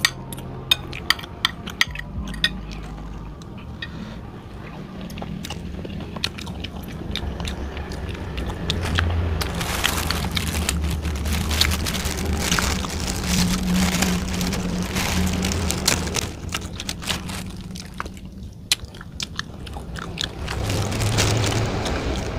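Close-miked eating sounds: chewing and crunching on chicken feet, with sharp clicks of a spoon and fork against a glass bowl in the first few seconds. Through the middle there is rustling of a plastic bag and sipping as a drink is taken straight from the bag.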